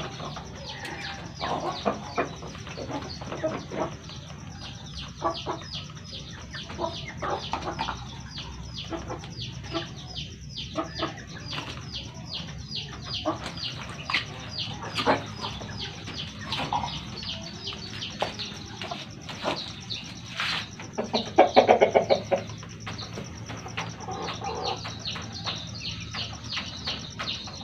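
Chickens clucking, with one louder call a little over two-thirds of the way through, over a steady run of short clicks.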